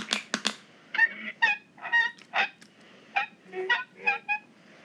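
A few quick squirts of a hand oil can, then a man's muffled, halting mumbling: short nasal 'mm-mm' hums broken into separate bits, as a rusted tin man tries to move his stiff jaw and talk again.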